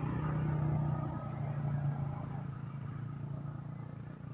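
A steady low engine hum, even in pitch, slowly fading away.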